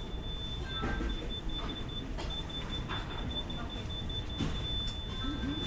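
A thin, high electronic tone, broken up at first and then held steady, over a low rumble of background noise with faint scattered voices.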